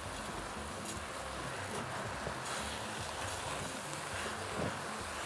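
Vermicelli and vegetables frying in a pot, stirred with a silicone spatula: a steady, even sizzle.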